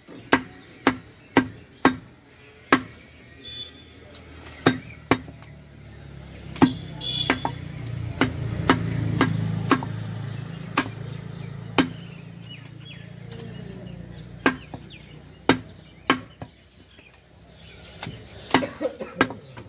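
Heavy meat cleaver chopping meat on a wooden tree-trunk block: a string of sharp thuds, about two a second at first. In the middle a low rumble swells and fades while the chopping slows, and a quick run of chops comes near the end.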